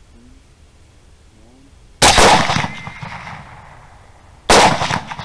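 Two suppressed 6.5 Grendel rifle shots about two and a half seconds apart, each a sharp report that trails off over about a second.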